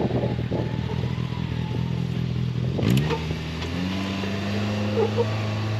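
Side-by-side UTV engine running steadily. About three seconds in there is a sharp click, and the engine note rises and holds at a higher steady pitch.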